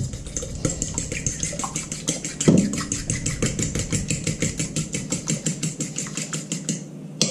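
A fork beating an egg in a stainless steel mixing bowl: rapid, even metal clinks and scrapes against the bowl, with one heavier knock about two and a half seconds in as the bowl is tipped. The strokes stop just before the end.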